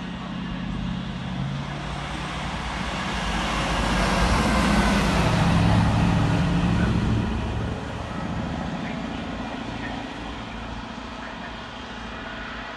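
A diesel on-track engineering machine passing along the main line: its engine grows louder, is loudest about five seconds in, then drops in pitch and fades as it moves away.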